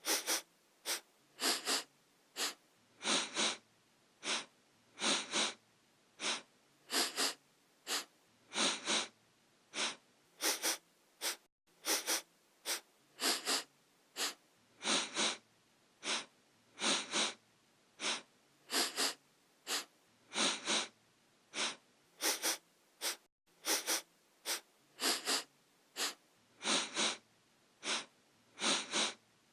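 A person sniffing through the nose over and over: quick sharp sniffs, mostly in pairs and threes, with a short break every second or so.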